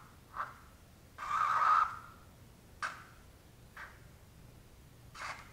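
Felt-tip marker drawing on paper: short scratchy strokes with pauses between them, the longest and loudest a stroke of about a second a little over a second in, plus a sharp tick near the middle.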